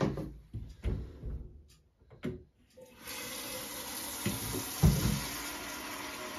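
A cooking pot knocking against a stainless steel kitchen sink as it is set down, then the tap turned on about three seconds in and water running steadily into the pot to fill it. Near the middle of the running water come two dull knocks, the second of them the loudest sound.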